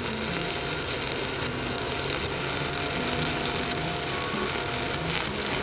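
Stick welding with a 7018 electrode: the arc's steady hissing crackle as a buildup pass is laid on a steel excavator bucket tooth.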